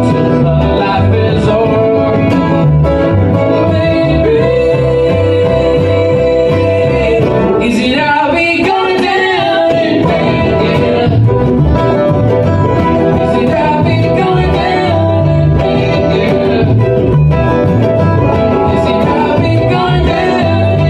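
Bluegrass band playing live on acoustic instruments: fiddle, banjo, upright bass, acoustic guitar and mandolin, with a woman singing. A long held note runs from about four seconds in, followed by a wavering vocal line.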